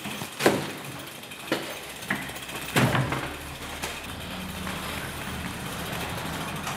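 A mountain bike being wheeled through a doorway: a handful of sharp knocks and clunks over a steady low hum, with mechanical ratchet-like clicking such as a freewheeling hub makes.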